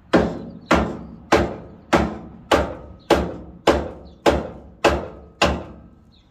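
Rubber mallet giving ten light, evenly spaced taps, just under two a second, on the protective plastic cap of a billet aluminium LED taillight, driving it into the steel bed-rail roll of a pickup, each tap with a short ringing tail. The housing is bottoming out against the cap as it seats.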